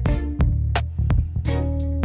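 Background music: plucked guitar and bass guitar over a steady beat with sharp percussion hits.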